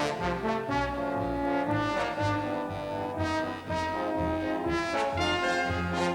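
Orchestral brass music: trombones, horns and trumpets playing a fanfare-like theme of repeated held notes.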